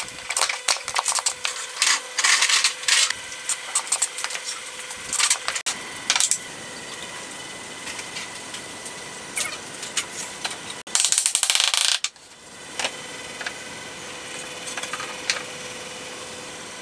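Workshop handling sounds on a wooden bench: pine pieces, screws and small metal connector plates clicking and knocking in quick clusters, then a loud rough burst lasting about a second near eleven seconds in, over a steady faint hum.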